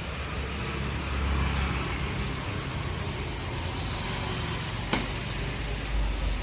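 Low, steady rumble of road traffic, swelling twice as vehicles pass, with one sharp click about five seconds in.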